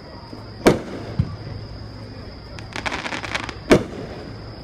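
Aerial firework shells bursting. There is a loud boom about a second in and another near the end, a weaker thump just after the first, and a run of rapid crackling between them.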